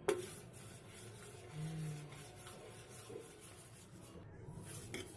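A sharp click, then faint scraping and rubbing.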